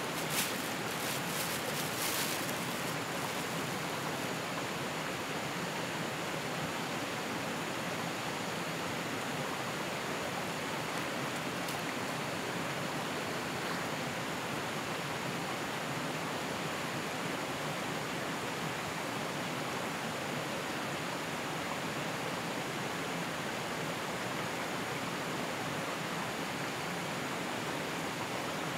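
Steady, even rushing noise of flowing water, with a few faint clicks in the first two seconds.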